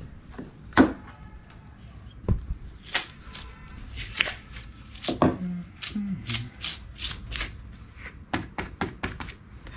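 Rubber grip being worked down over a cricket bat handle by hand: rubber rubbing and slapping against the handle in a string of short, sharp snaps, coming thicker near the end.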